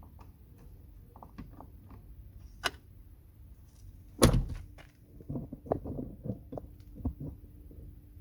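Clicks and knocks of hand work on a car door's handle and lock parts: a sharp click, then one loud knock about four seconds in, followed by a quick run of smaller knocks and clicks.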